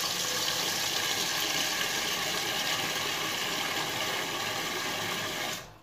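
Water running steadily from a kitchen tap, shut off abruptly near the end.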